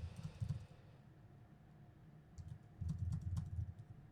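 Typing on a computer keyboard: a quick run of keystrokes, a pause of about two seconds, then another run of keystrokes near the end.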